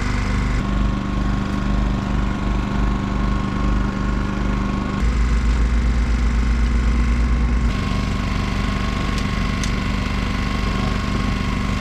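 Fishing boat's engine running steadily with a rhythmic low throb, louder for a few seconds in the middle.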